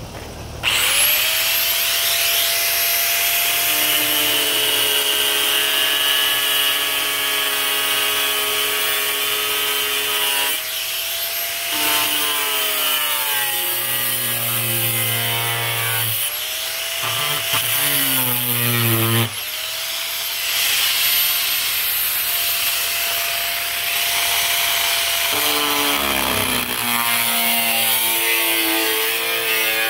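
Corded angle grinder spinning up about a second in and running with a steady whine while it cuts thin sheet steel. Its pitch sags several times as the disc bites into the metal and climbs back as the load eases.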